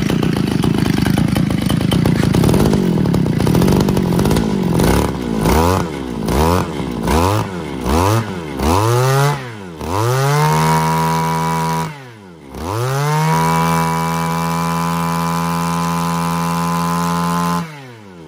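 Mitsubishi TL261 26cc two-stroke backpack brush cutter engine being revved. It runs hard at first, then gives about seven quick throttle blips, its pitch rising and falling each time. It is then twice revved up and held at high speed, with a short dip between, before the revs fall away sharply near the end.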